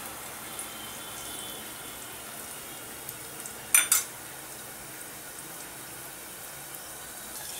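Diced potatoes frying in oil in a covered steel kadhai: a soft, steady sizzle, with two sharp clicks in quick succession about four seconds in.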